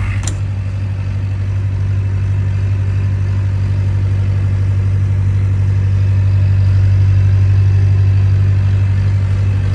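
Cummins-engined 62.5 kVA diesel generator set running steadily during a load test, a low, even drone that grows slightly louder over the first several seconds. A brief sharp click sounds just after the start.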